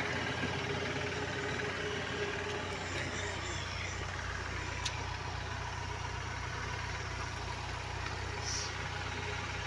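A Tata truck's diesel engine running steadily at a low, even hum, heard from inside the cab. A single light click comes about five seconds in.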